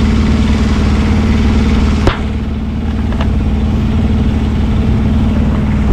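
An engine idling steadily at a constant pitch, with a sharp click about two seconds in.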